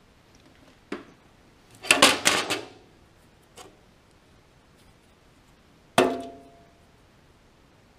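Metal knocking and clatter in a sheet-steel battery compartment: a single knock, then a rattling cluster of knocks about two seconds in. A faint tap follows, then one sharp metallic knock with a short ring about six seconds in.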